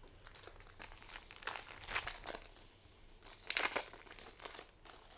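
Foil trading-card booster pack wrapper crinkling in the hands, with louder crackles about two seconds in and again a little past halfway.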